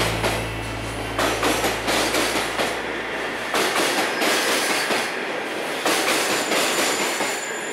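Container freight train's wagons rolling past close by, wheels clattering rhythmically over rail joints about once a second. A steady low hum underneath stops about three and a half seconds in.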